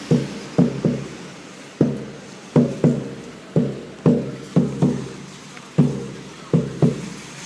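A series of hollow, drum-like knocks, each with a short low ring, coming about twice a second in an uneven rhythm.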